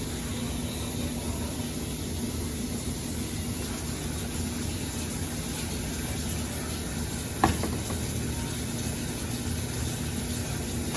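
Steady hiss of water on the stove or at the sink, with a low hum underneath and one sharp clink about seven and a half seconds in.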